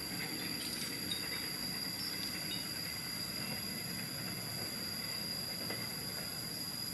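Steady high-pitched insect drone, several held tones, over a low even rumble that neither rises nor falls.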